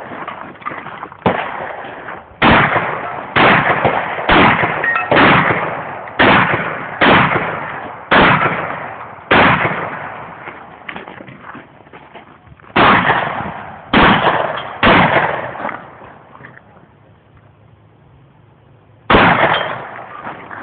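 Shotgun fired over and over in a rapid string, about one shot a second, each report loud with a short echoing tail. After roughly a dozen shots there is a pause of about three seconds, then one more shot near the end.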